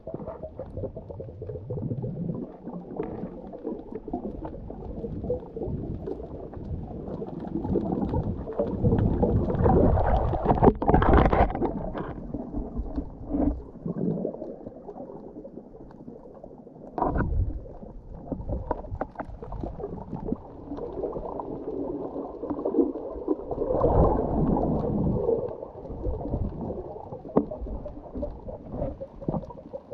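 Muffled underwater water noise, a rumbling gurgle picked up by a camera moving through the water. It swells louder about ten seconds in and again a little past the middle, with a sharp knock in between.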